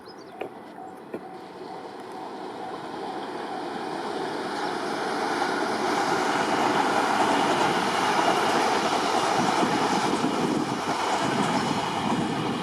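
Six-car electric local train, a two-car 701 series coupled to a four-car E721-1000 series, approaching and running past. Its rumble grows steadily louder over the first half, then stays loud as the cars go by.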